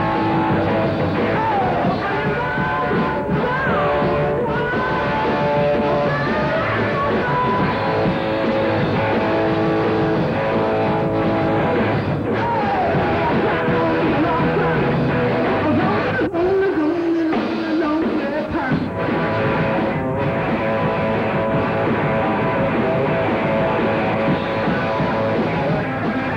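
A rock band playing a song live, with electric guitar at the front.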